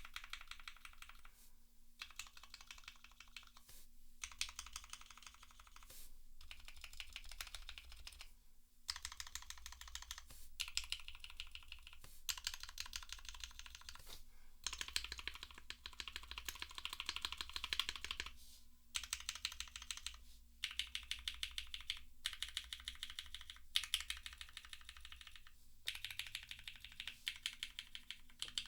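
Keystrokes on a gasket-mounted 65% custom mechanical keyboard with a carbon fibre plate, lubed and filmed Cherry MX Black Hyperglide linear switches and GMK keycaps, typed on the modifier keys. The presses come in rapid runs of clicks, broken by short pauses every couple of seconds, over a faint steady hum.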